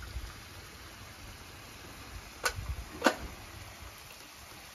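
A small steel spoon clinks twice against metal cookware, two sharp knocks about half a second apart, the second louder with a brief ring, over a low background rumble.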